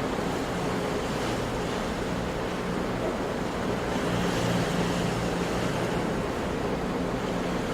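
Sea surf: waves washing in as a continuous rushing noise that swells a little about halfway through, with a faint low steady hum underneath.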